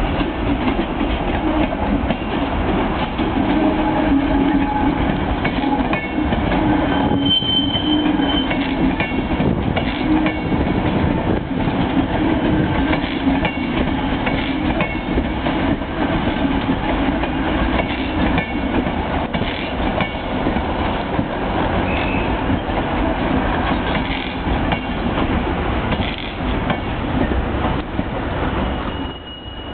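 Virgin Class 390 Pendolino electric train running past at low speed as it leaves the station, its wheels clattering steadily over rail joints and pointwork. A brief high wheel squeal comes about seven seconds in.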